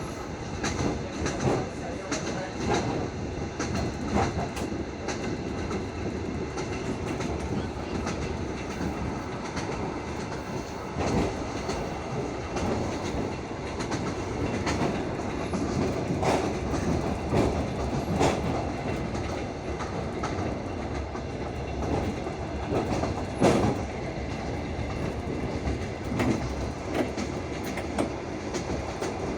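Wheel clatter of a moving passenger train, heard from inside the carriage: a steady rolling rumble with wheels clacking over rail joints at uneven intervals.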